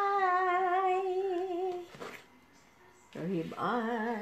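A person humming one long held note with a slight waver, which stops about two seconds in; after a short pause a second, lower hum rises and holds near the end.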